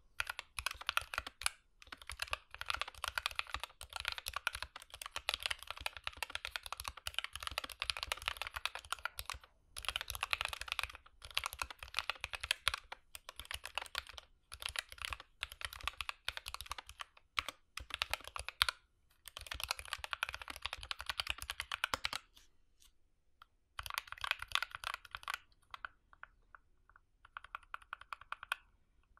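Typing on a GK61 mechanical keyboard fitted with lubed Gateron Optical Red linear switches. Fast runs of keystrokes are broken by short pauses, and the typing thins to a few scattered key presses near the end.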